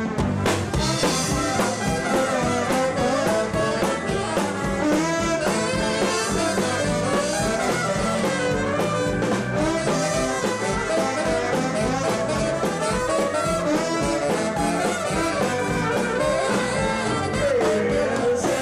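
Live band playing, with a horn section of trombone and trumpet over drums and keyboards.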